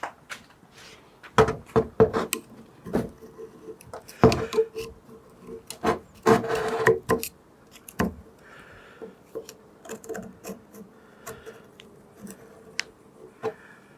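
A screwdriver scraping and clicking around inside the circlip groove of a Honda CT110 front fork leg, cleaning out old grease and grime. The strokes are irregular, with the loudest scrapes in the first half, over a faint steady ringing tone.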